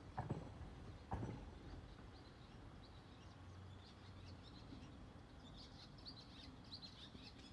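Small birds chirping faintly: many short, quick high chirps that grow busier in the second half. Two dull thumps, the loudest sounds, come right at the start and about a second in.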